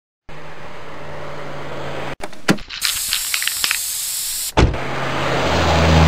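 Intro sound effects: a steady car engine hum, a couple of knocks, then a loud spray-can hiss with a few rattling clicks lasting about two seconds. After another knock about halfway through, the engine hum comes back and swells as a car pulls in.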